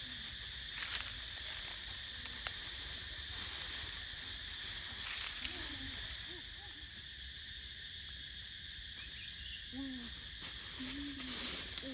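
Forest ambience: a steady high insect drone, with a bird's low, arching coo notes, sparse at first and coming in a quick series near the end. A few faint clicks and crackles.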